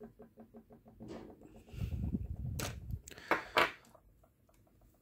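Handling noise from the parts of an opened airsoft electric gun gearbox: a low rumble about two seconds in, then a few sharp clicks and clatters of the metal parts, loudest about three and a half seconds in. A rapid, evenly pulsing creak runs through the first second and a half and comes back near the end.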